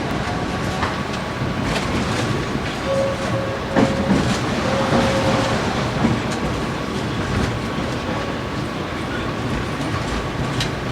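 Tram running on its rails: a steady rumble with a few sharp clacks of the wheels over rail joints and a faint steady whine.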